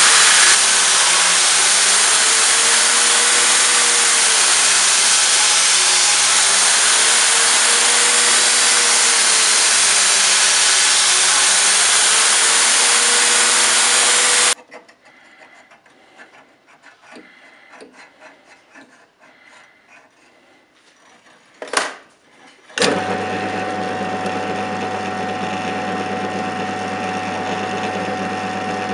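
Belt grinder grinding a steel sword blade: a loud, steady grinding hiss with a wavering tone underneath, which cuts off about halfway through. After a quiet stretch of small handling clicks and one sharp knock, a drill press motor starts and runs with a steady hum.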